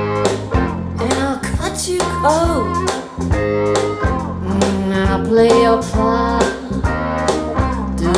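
Music: a blues-tinged song with guitar and a singing voice gliding between notes over a steady bass and beat.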